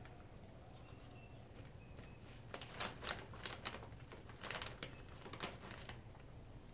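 Plastic-foil snack bag of kettle corn crinkling in irregular crackles as a hand digs into it for popcorn, mostly in the second half.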